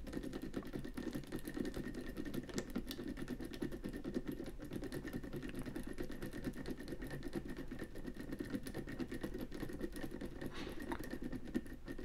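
Tubular lock pick being rotated back and forth in a clear practice tubular lock: a continuous fast rattle of tiny clicks as the pick's needles work against the lock's pins.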